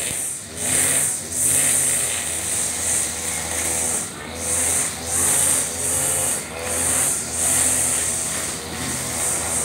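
Husqvarna 542RBS backpack brush cutter's two-stroke engine running at high speed, its round nylon trimmer line whirring through short grass. The sound swells and dips about once a second as the cutter is swung side to side.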